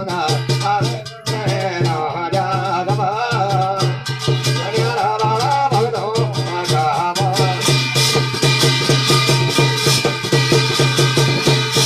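Garhwali jagar devotional music: a sung melody over a fast, steady drum beat with rattling percussion. The wavering vocal line drops out about seven seconds in, leaving the drumming, the rattling percussion and a steady held tone.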